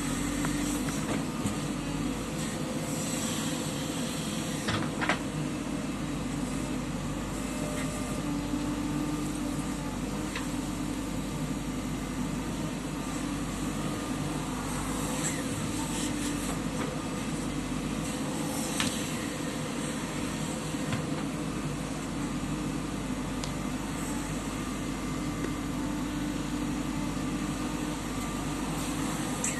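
Diesel engine of a JCB 3DX backhoe loader running steadily at work, with a few sharp knocks now and then.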